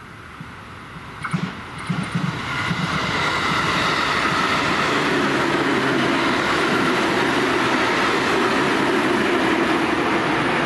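JR West commuter electric train passing at speed: a few sharp clacks as it comes in, then its running noise of wheels on rail builds to a steady loud rush.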